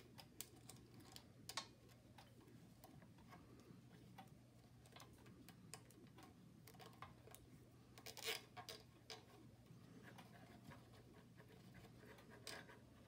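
Faint, scattered clicks and taps of hands handling the drive belt and pulley of a small air compressor, the strongest about eight seconds in, over a low steady hum.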